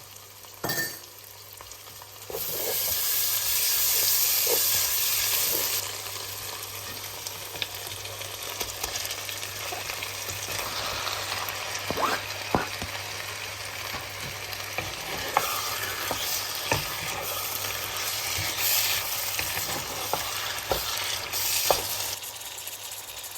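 Onions and whole spices frying in hot oil, sizzling while a spoon stirs and knocks against the pan. About two seconds in the sizzle jumps much louder for a few seconds as garlic and ginger paste goes into the oil, then settles to a steady frying hiss.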